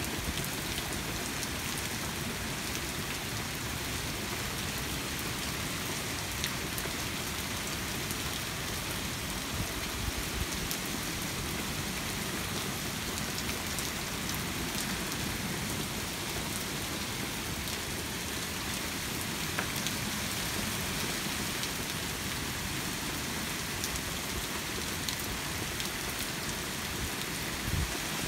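Steady rain falling in a thunderstorm, with scattered sharp drop ticks close by.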